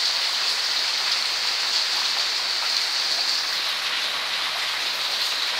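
Steady rain falling, a continuous even hiss with no let-up.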